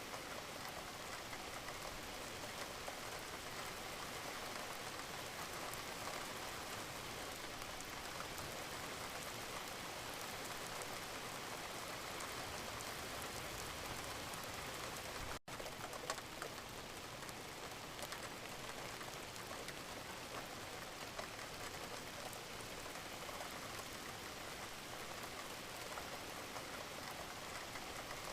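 Steady rain, a dense even patter of drops. It cuts out for an instant about halfway through.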